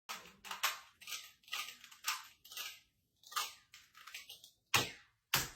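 A Rubik's-type puzzle cube being turned by hand, a run of short scraping clicks about two a second as the layers rotate, followed by two sharp thumps near the end.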